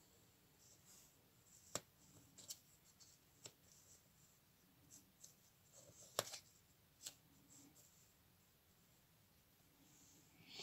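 Faint rustling and light ticks of small paper pieces being handled and laid down by hand on a cutting mat, with a few sharper ticks scattered through, the clearest about two and six seconds in.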